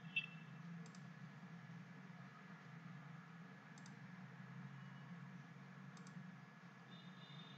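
Computer mouse clicks over a faint, steady low hum: one sharper click just after the start, then a few faint double clicks spread a couple of seconds apart.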